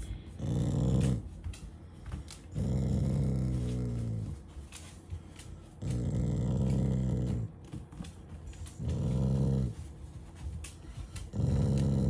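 Black Shiba Inu growling in five low rumbling bouts, each about one to two seconds long with short pauses between, while being patted on the head. It is a playful growl, not an angry one.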